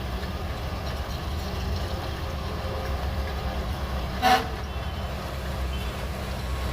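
Shantui DH17C3 bulldozer running under load with a steady low engine drone, and one short, loud pitched squeak or beep a little past four seconds in.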